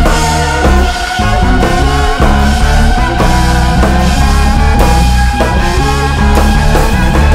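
Instrumental band playing loudly and without a break: drum kit, electric bass, electric guitar and saxophones, with drum hits running through a steady bass line and held melodic notes above.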